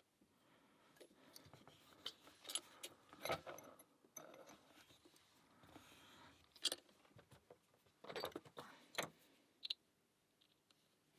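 Small metal lock-picking tools clicking, scraping and clinking in a pin-tumbler lock, in irregular bunches with a few sharper clicks.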